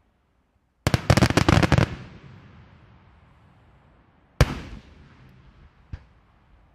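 Daytime aerial fireworks bursting: a rapid string of sharp bangs lasting about a second, then a single loud bang with a long echoing tail a few seconds later, and a fainter bang near the end.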